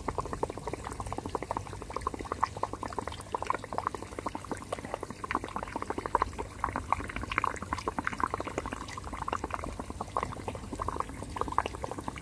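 Air from an aquarium air pump bubbling up through air-driven sponge filters and air stones in a shallow pool, a steady, dense bubbling and popping at the water surface.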